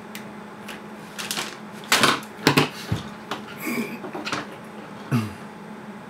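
Needle-nose pliers and wire leads being handled: a string of irregular sharp clicks and rattles, the loudest about two seconds in, over a steady low hum.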